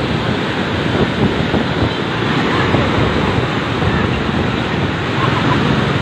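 Fast-flowing muddy floodwater rushing past in a loud, steady wash.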